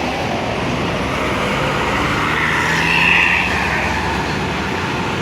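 A large bus driving past on the road: steady engine and tyre noise that swells about three seconds in as it goes by. No telolet horn sounds.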